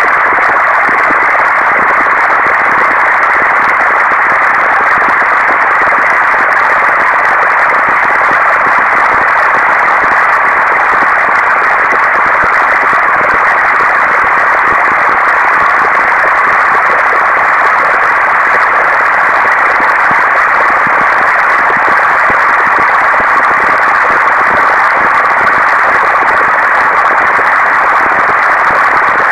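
Procedurally generated digital noise from a pixel-sorting algorithm's sonification: a loud, steady, dense rush of mid-pitched noise with no rhythm, pitch or pauses.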